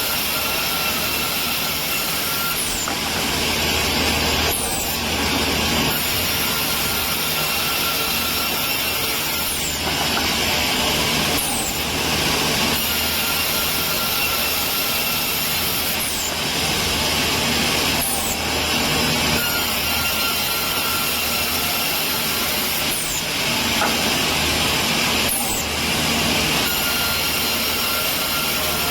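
Woodworking machinery running steadily as pine timber is processed, its sound shifting every few seconds, with short falling high whistles now and then.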